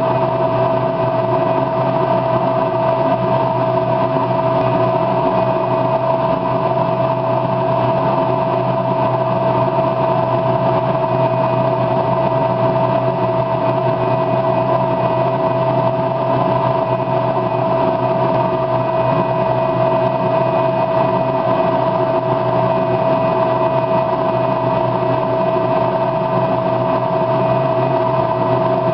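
Steady mechanical hum from a running motor, with a constant mid-pitched tone on top, unchanging throughout.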